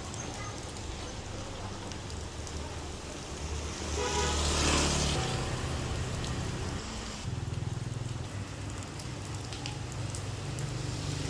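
Food frying in a hot pan: a steady sizzle over a low hum, swelling louder for about a second around four seconds in.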